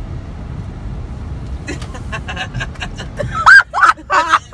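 Steady low road rumble inside a moving car, then about three and a half seconds in a woman breaks into loud bursts of laughter.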